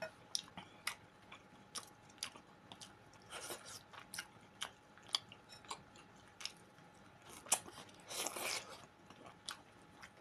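A person chewing and eating close to the microphone: irregular wet mouth smacks and small clicks, with a longer noisier sound about eight seconds in.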